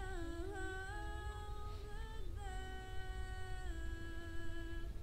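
A person humming a slow tune in held notes that step up and down with short slides between them, over a low rumble.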